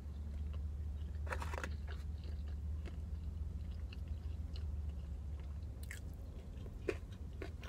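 A person chewing and biting food, with small wet clicks and a few brief soft crunches, over a steady low hum.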